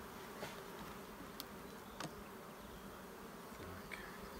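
Honey bees buzzing over an open hive: a faint, steady hum of many bees, with a few short clicks.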